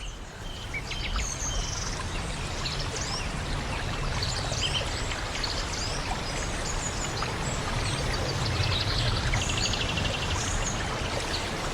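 Birds chirping and whistling, many short calls with a fast trill about nine and a half seconds in, over a steady rushing background noise with a low rumble.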